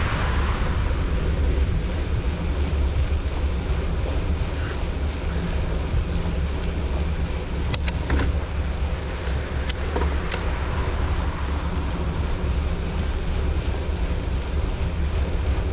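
Steady deep wind rumble on the microphone with road noise, from the camera moving along a paved lane. A few sharp clicks come in a quick cluster about eight seconds in and again around ten seconds.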